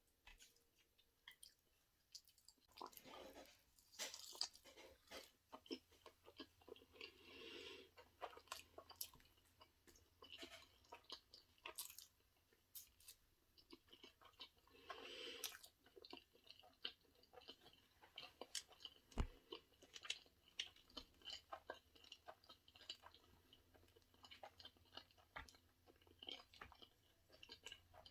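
Quiet close-miked chewing of sushi: irregular wet clicks and smacks of a mouth working through food, with a few louder bites.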